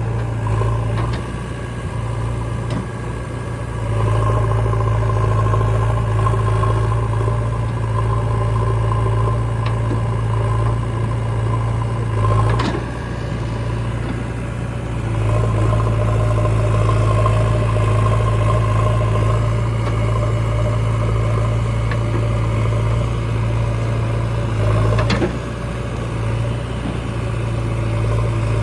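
Diesel engine of heavy earth-moving machinery running, its note rising and dropping back several times as the load changes. A sharp knock about halfway through and another near the end.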